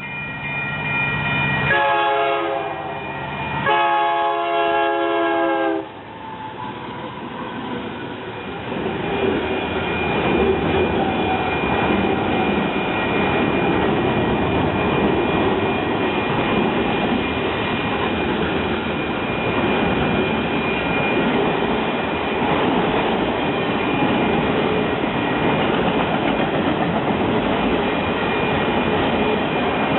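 Locomotive air horn sounding two blasts, the second longer. Then the train rolls past with a steady noise of wheels on rail.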